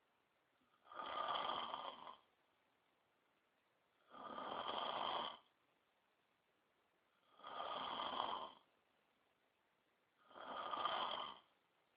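A man snoring asleep: four snores about three seconds apart, each lasting about a second, with quiet gaps between them.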